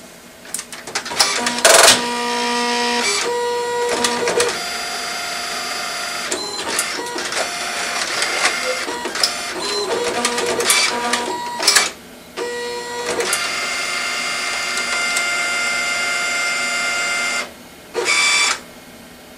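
Epson Stylus Color 440 inkjet printer at work: its motors whine at several steady pitches, with clicks between movements. The sound drops off briefly about twelve seconds in, stops near the end, then gives one more short burst.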